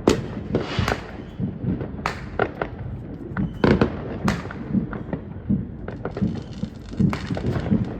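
Consumer fireworks going off: a string of sharp bangs with smaller crackles between them, at uneven intervals, loudest about four seconds in.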